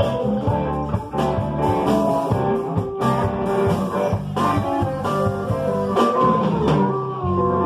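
Live blues band playing: electric guitars with bending lead notes over a drum kit, with a harmonica wailing into a microphone.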